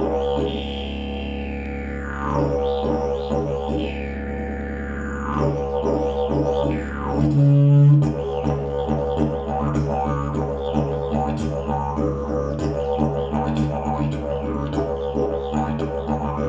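Fiberglass slide travel didgeridoo playing a steady low drone, its overtones sweeping up and down as the mouth shapes the sound. About halfway through, a short, louder, higher note breaks the drone. After it the playing moves into a quicker rhythmic pulsing.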